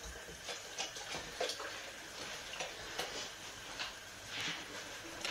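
Pan of chicken legs in tomato sauce on the hob, faintly sizzling, with irregular small pops and ticks and a brief swell of hiss near the end.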